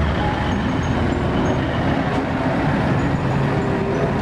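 Mitsubishi Fuso concrete mixer truck's diesel engine running steadily as the truck drives along a street.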